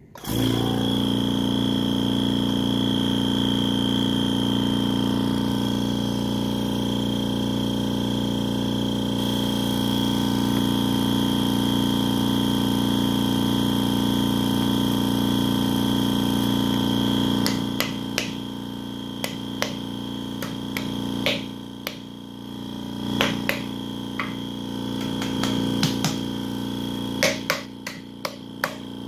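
MTI VTC-100PA vacuum spin coater starting suddenly and running with a steady mechanical hum topped by a high whine. After about seventeen seconds it drops quieter, and a scattering of sharp clicks follows.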